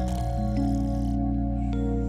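Background music of long, held notes and chords that shift slowly, with a short hiss of noise over the first second.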